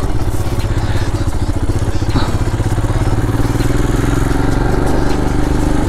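Motorcycle engine running steadily, heard from the rider's seat, with a fine low pulsing.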